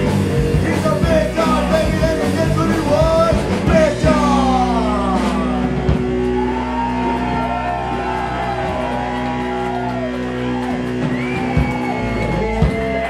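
Punk rock band playing live, electric guitars and drums loud with shouted singing. About four seconds in, the drumming thins out and a held chord rings on with sliding tones over it, the song winding down to its end.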